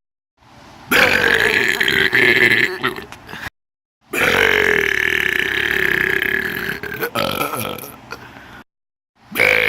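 Long, drawn-out human burps, two of them lasting two to three seconds each, cut apart by brief dead silences; a third begins right at the end.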